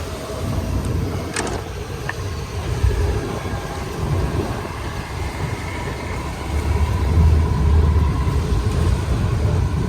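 Fishing boat's engine running with a steady low rumble, growing louder about two-thirds of the way through; a single sharp click about a second and a half in.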